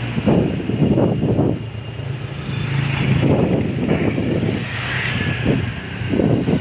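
Motorcycles and motor scooters passing close by one after another, their small engines running with a low hum that swells as each goes by.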